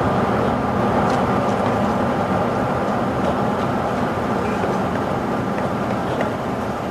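Steady rumble of a moving vehicle, an even noise with no distinct events.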